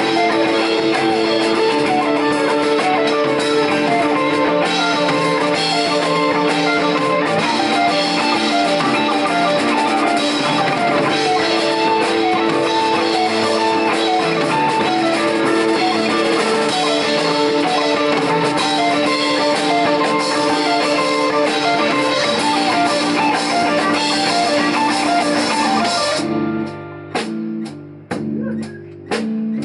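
Live instrumental rock band playing: two electric guitars, electric bass and drum kit, with sustained guitar lines over a steady groove. Near the end the cymbals drop away and the band switches to short, choppy stabs with gaps between them.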